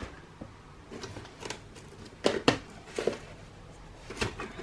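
A handful of light, irregular clicks and knocks as containers and a scoop are handled among the powder sacks at the worktop.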